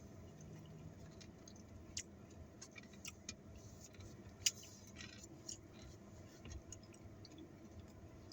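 Quiet eating sounds inside a car: chewing and soft mouth and packaging clicks scattered through, over the low steady hum of the car's cabin. One sharper click about halfway through.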